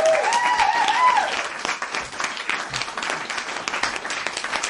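A crowd applauding, with a few cheering whoops in the first second. The clapping then carries on at a steady level.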